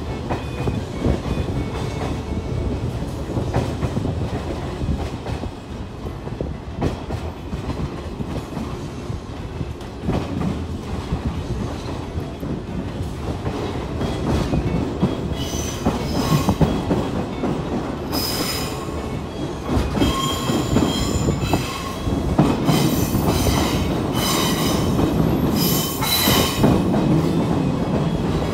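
JR 115 series electric train heard from inside the carriage, rolling through station trackwork with a steady rumble and the clatter of its wheels over rail joints. From about halfway on, the wheels squeal intermittently in high thin tones as the train takes the curves and points.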